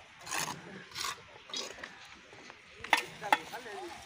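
Footsteps crunching on loose stone ballast, about one step every half to two-thirds of a second. About three seconds in come two sharp metallic clinks.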